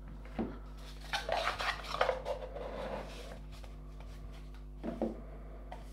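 Cardboard card boxes and a stack of trading cards being handled: a light knock, then a stretch of rustling and scraping of cardboard, and another light knock near the end.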